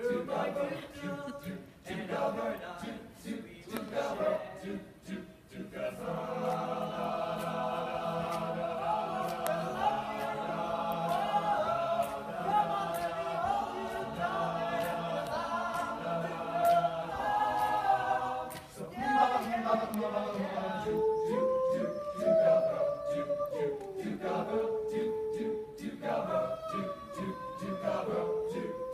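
All-male a cappella choir singing in harmony. Choppy rhythmic figures give way about six seconds in to long held chords, and after about nineteen seconds a moving melody line runs over a rhythmic backing.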